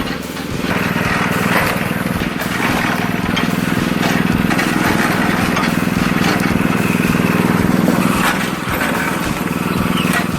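Engine of a wood-splitting machine running steadily under load, with scattered sharp knocks and cracks as wood is worked.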